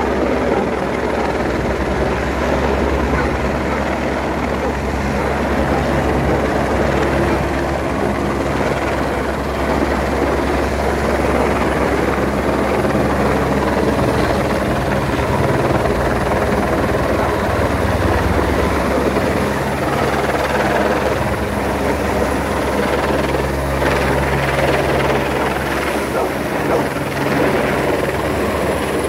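Helicopter flying slowly overhead with a slung load on a long line, its rotor beating steadily.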